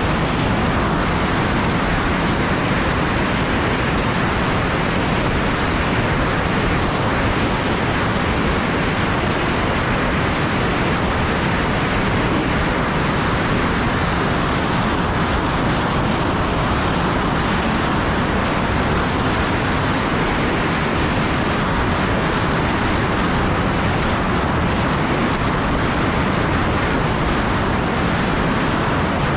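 Kawasaki Ultra 310 jet ski running at speed through rough ocean chop: a steady, even rush of wind on the microphone and water spray, with the engine buried underneath.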